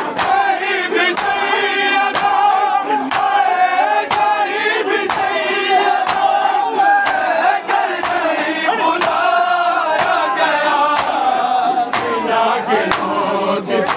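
A group of male voices chanting an Urdu noha lament together, over sharp even strikes about twice a second: the rhythmic chest-beating (matam) that keeps time with a noha.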